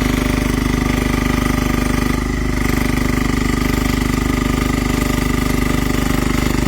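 Mini excavator's small engine running steadily with a fast, even chugging, working the hydraulics to dig out a tree stump. It dips briefly a little over two seconds in.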